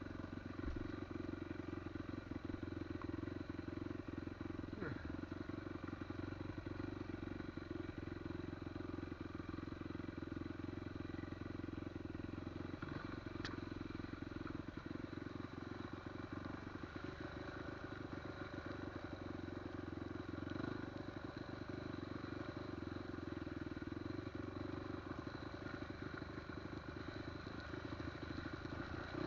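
Off-road motorcycle engine running at a steady, even pitch.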